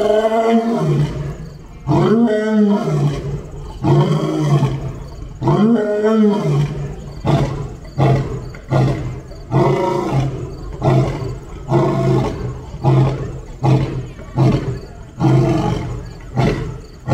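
Male lion roaring: four long roars about two seconds apart, each rising and falling in pitch, followed by a run of shorter grunting roars about one a second.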